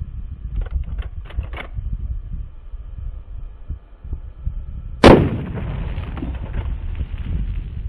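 A single shot from a Marlin Model 30TK lever-action .30-30 carbine about five seconds in, followed by a long rolling echo. A few light clicks come in the first two seconds, and wind rumbles on the microphone throughout.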